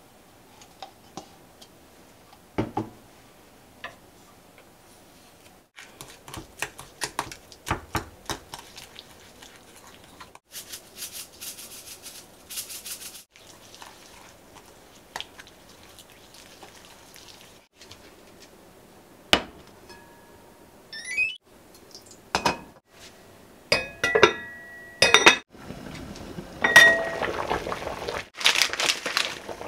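A spoon clinking and scraping against a glass mixing bowl while a sauce is stirred and then worked through the meat, in scattered sharp clinks. Near the end, water bubbling at the boil in a pot.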